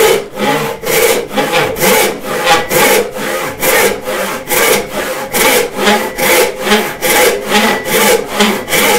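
Roubo-style frame saw ripping lengthwise through an oak board to resaw it, in a steady rhythm of rasping strokes at about two a second.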